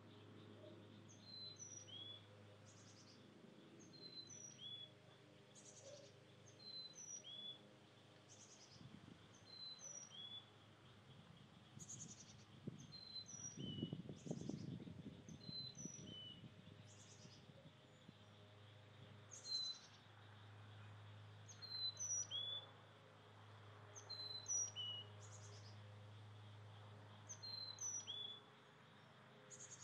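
Faint songbird calls: a phrase of short, high chirps and raspy buzzy notes repeated about every two seconds.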